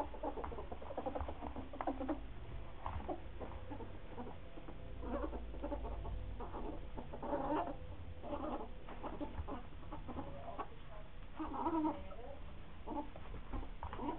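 Ferrets dooking, a clucking chatter in short irregular bursts, with small scuffling clicks, as they play-fight; one ferret is in an aggressive, combative mood.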